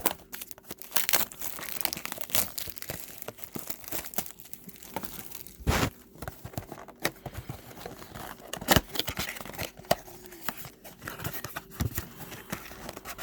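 Trading-card packaging being opened by hand: blaster box wrap and foil pack wrappers crinkling and tearing, in irregular rustles with scattered sharp crackles and two louder snaps about six and nine seconds in.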